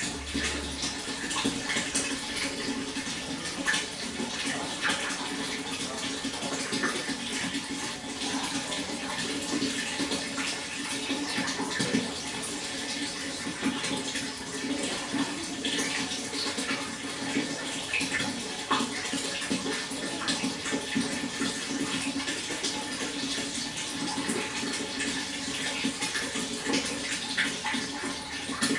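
Water flowing steadily, with many small splashes scattered through an even rush.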